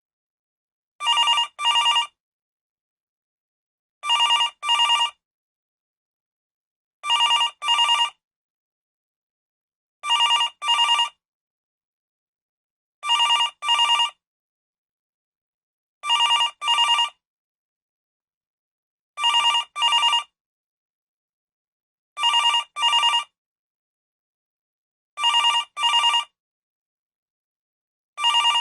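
Telephone ringing in the double-ring cadence: two short rings close together, then a pause, repeating about every three seconds, with nine pairs and the start of a tenth right at the end.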